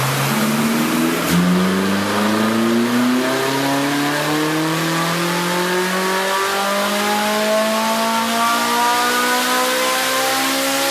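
Ferrari 458 Spider's naturally aspirated V8 through an Akrapovic exhaust, pulling on a chassis dyno: the engine note jumps about a second in, then climbs slowly and steadily in pitch as the revs build through a gear.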